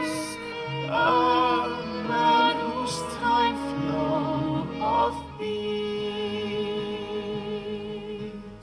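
Slow song with a woman's sustained, vibrato-laden singing, played back through a Mackie CR-series Bluetooth studio monitor. About five seconds in the voice ends and a held chord fades out.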